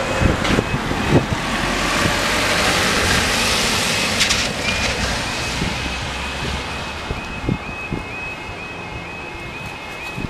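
Level crossing warning alarm starting as the amber lights come on, settling from about five seconds in into a fast, repeating yodelling tone. A road vehicle passes across the crossing in the first half, and wind rumbles on the microphone throughout.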